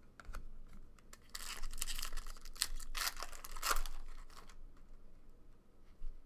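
The wrapper of a 2012-13 Fleer Retro basketball card pack being torn open and crinkled. The crackling starts about a second in and lasts about three seconds. After it come light ticks as the cards are slid out and handled.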